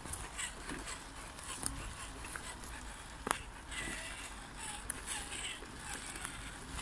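Scattered crunches and snaps of dry twigs, pine needles and pine cones on the forest floor, under an RC crawler's tyres and footsteps, with one sharper snap about three seconds in.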